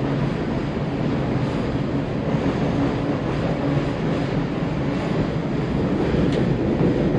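Steady rumble of a 1999 Carver 504 motor yacht's twin diesel engines running underway, mixed with wind noise and water rush against the hull.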